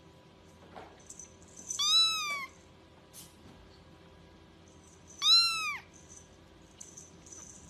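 A young kitten mewing twice, about three seconds apart: short high-pitched calls that rise and then fall in pitch.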